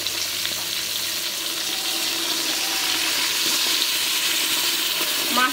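Koi fish frying in hot oil in a steel karahi, a little spiced water just added: a steady sizzling hiss that grows slightly louder.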